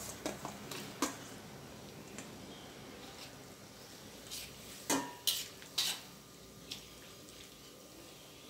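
Metal ladle stirring greens in a wok of water, knocking against the wok and a stainless steel bowl, with a sharp clank about a second in and a quick run of three clanks around five to six seconds in, over a low steady hiss.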